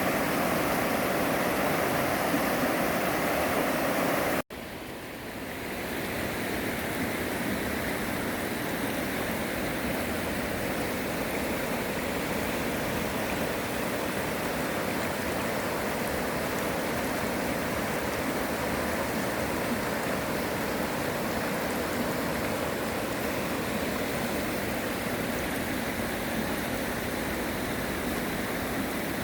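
Mountain stream rushing steadily over rocks. About four seconds in the sound drops out for an instant, then the rushing comes back quieter and builds up again.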